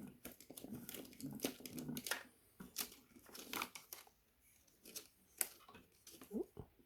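Handling noises: scattered sharp clicks and rustling, busiest in the first four seconds and thinning out towards the end.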